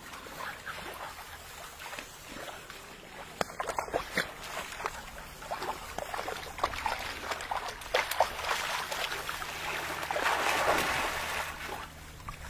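Water splashing and lapping as Labrador puppies paddle, mixed with scattered clicks and rustles, growing louder near the end.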